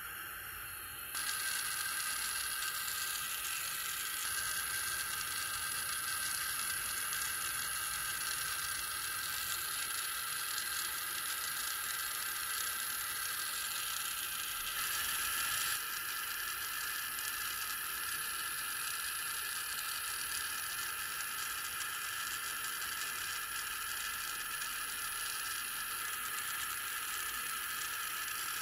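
Small gas soldering torch burning with a steady hiss while silver solder is heated on a silver ring; the hiss gets louder about a second in.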